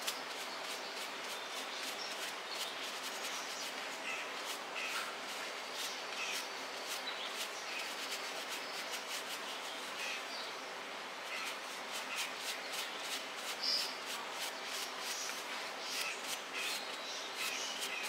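A small handheld brush scrubbing the plush fur of a giant teddy bear in quick, repeated scratchy strokes.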